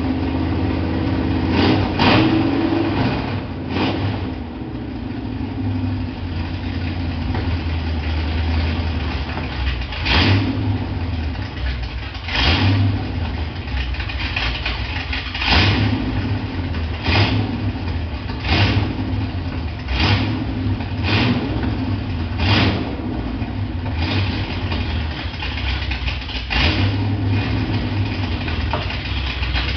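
Dodge V8 engine rumbling at idle, with the throttle blipped into short sharp bursts every second or two from about ten seconds in.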